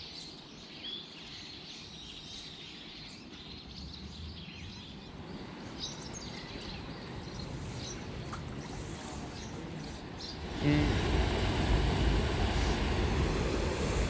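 Quiet river ambience with small birds chirping faintly, then about ten seconds in a steady rush of water comes in much louder: water spilling over a low river weir.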